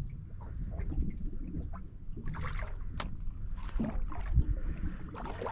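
Water sloshing and lapping against a small boat's hull over a low steady rumble, with one sharp click about three seconds in.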